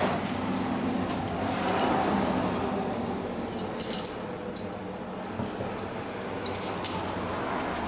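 Metal V-band clamps clinking and jangling as they are handled, in several short bursts, over a steady low hum.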